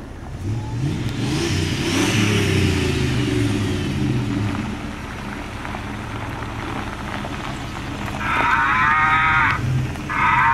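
A 1980s Dodge pickup truck's engine running as it drives in over gravel, its pitch rising and falling as the truck slows and pulls up, then running more steadily. Near the end come two loud, wavering high calls, each about a second long.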